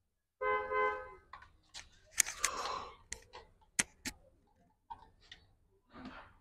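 Hand tools on a generator's alternator: a steel T-handle socket wrench and spanner clicking and clattering against metal as wires and the carbon brush holder are worked loose, with four sharp clicks in the middle. A short steady horn-like tone sounds about half a second in.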